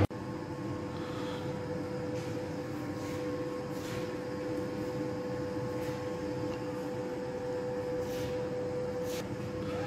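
Steady machine hum with a constant mid-pitched tone, from bakery machinery running, with a few faint taps over it.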